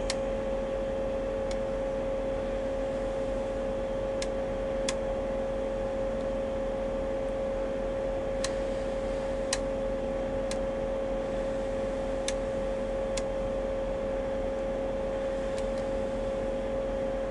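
Steady electrical whine from the pipe inspection camera system, with sharp single clicks at irregular intervals, a dozen or so in all, while the camera's push cable is fed along the pipe.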